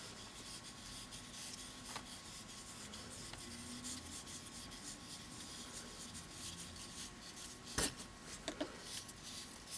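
Faint rubbing and scraping of 3/8 inch ribbon sliding through the fingers as it is wound onto a spinning wooden dowel. A sharp click sounds about eight seconds in, followed by a couple of lighter ticks.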